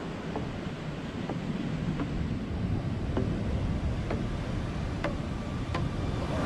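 Surf washing up onto a sandy beach, with wind buffeting the microphone.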